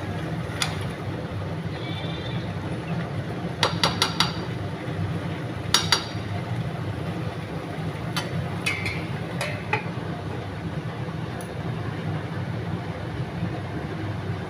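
A spoon stirring curry in a pan, knocking and clinking against the pan in short clusters, over a steady low hum.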